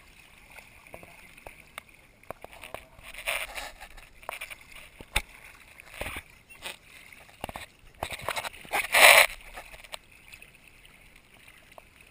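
Shallow seawater splashing and sloshing as feet wade over sand, with two louder bursts of splashing, about three seconds in and around eight to nine seconds in, and a few sharp clicks between them.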